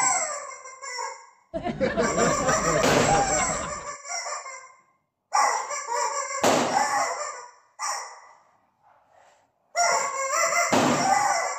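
Rooster crowing and clucking sound effect, played in several separate bursts of about two seconds each with dead silence between them. Under the burst about two seconds in there is a lower, noisier sound.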